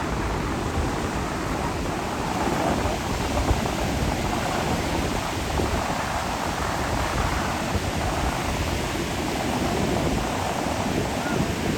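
Ocean surf breaking and washing ashore as a steady wash of noise, with wind buffeting the microphone underneath.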